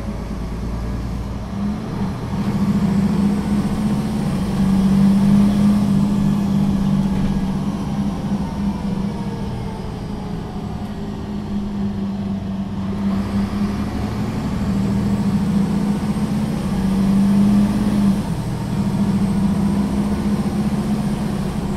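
Solaris Urbino III 12 city bus's diesel engine pulling hard under kickdown (full-throttle acceleration). The engine note builds from about two seconds in and eases off around ten seconds in. It pulls hard again from about fourteen seconds and drops back shortly after eighteen seconds.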